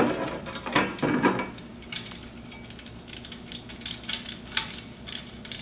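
Metal clinks and clanks of a socket wrench tightening the nut on a steel butterfly cable hanger against a galvanized steel plate. A few louder clanks in the first second or so, then a run of lighter, rapid ticks.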